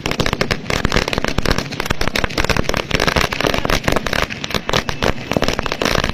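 Firecrackers going off on the ground in a rapid, unbroken run of sharp bangs and crackles.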